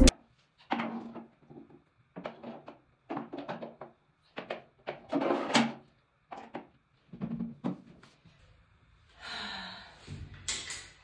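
Soft, irregular knocks and handling sounds from a white flat-pack work desk being fitted together, with a brief rustle near the end.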